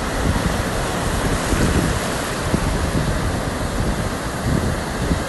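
Ocean surf washing steadily, with wind buffeting the microphone in irregular low gusts.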